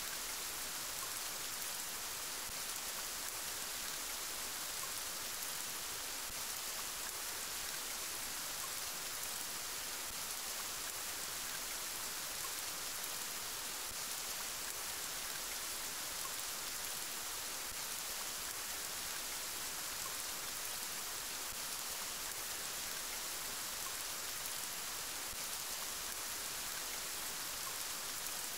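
Steady rain, an even hiss with no thunder or single drops standing out.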